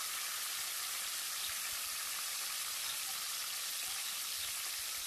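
Marinated chicken pieces shallow-frying in olive oil in a non-stick pan, sizzling steadily.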